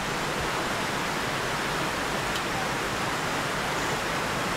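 A steady, even rushing noise with no distinct events, like running water or wind.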